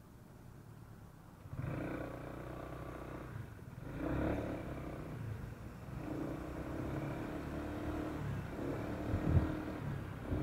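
Honda ADV150 scooter's single-cylinder 150 cc engine restarting from idle stop the instant the throttle is twisted, about a second and a half in, then running and pulling away, getting louder from about four seconds in.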